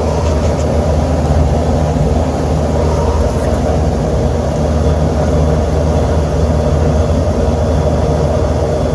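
Trane rooftop air-conditioning unit running, its blower and compressor giving a steady low hum and drone that does not change. The unit has just been started again, and its pressures are still climbing and settling.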